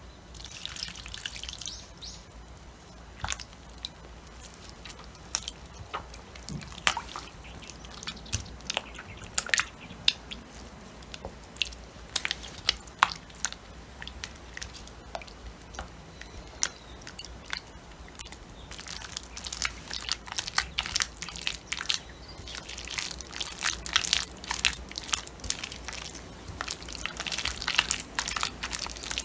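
Sticky rice-flour dough being stirred and worked in a bowl: irregular wet clicks and smacks, coming thick and fast near the end.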